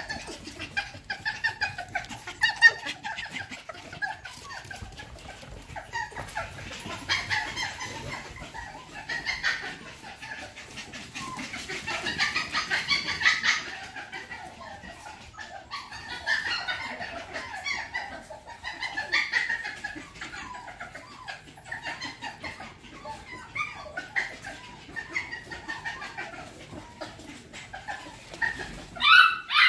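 Mini goldendoodle puppies yipping and whimpering in many short, high calls as they play, louder in bunches.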